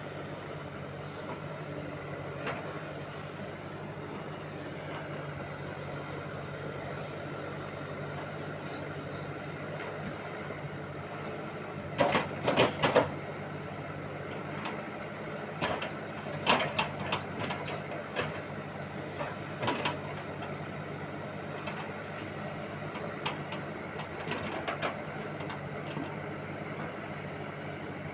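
Bulldozer's diesel engine running steadily at a low, even pitch. Groups of sharp metallic clanks and knocks break in several times, loudest about twelve seconds in, as the machine works at demolition.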